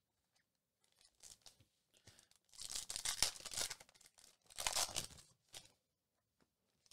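Foil wrapper of a 2022 Panini Spectra football card pack being torn open and crinkled by hand. There are some light rustles at first, then a longer tear about two and a half seconds in, a second burst just before five seconds, and a short rustle near the end.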